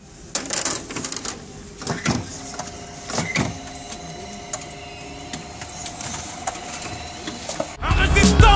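Motorised automatic trash bin working: an electric motor hums steadily as its drum mechanism turns, with clunks and rattles of the lid and contents. Loud music with a beat comes in suddenly near the end.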